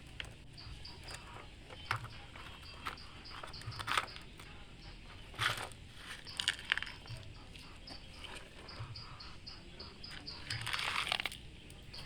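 Gritty scraping and crunching of sand as toy trucks and a toy excavator scoop and dump it, in several short bursts with a longer one near the end. Underneath, an insect chirps steadily, about four chirps a second.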